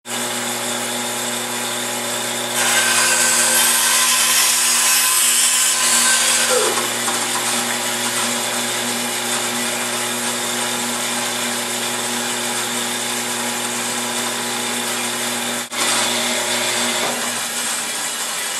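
Band saw running with a steady hum; from about three seconds in, the blade cuts through wood for roughly four seconds, then the saw runs on.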